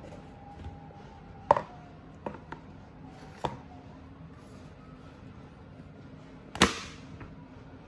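Collapsible water scoop being handled and pressed down onto a cutting mat: scattered light knocks and clicks, then one louder knock with a short rustle after it, near the end, as the bowl is pushed flat.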